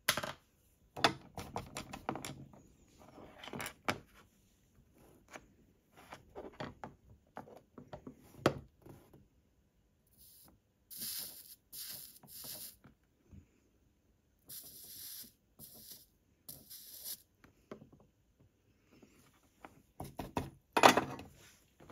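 Light clicks and knocks of tools being handled, then two spells of short hissing bursts, each lasting about two seconds, about halfway through: Phosflux liquid flux sizzling under a hot soldering iron's chisel tip on a white metal joint. A sharp knock near the end is the loudest sound.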